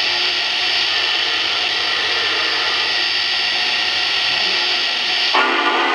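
Simulated steam hiss from the onboard sound system of a Lionel Vision 2-10-10-2 O gauge model steam locomotive standing still, steady and even. Near the end, the locomotive's chime steam whistle starts sounding several notes at once.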